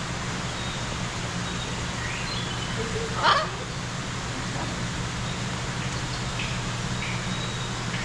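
A parrot gives one short, loud, raspy call about three seconds in, over a steady low hum. Faint high chirps come now and then.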